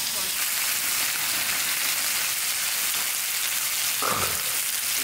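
Pork belly strips sizzling on a hot round griddle pan: a steady frying hiss.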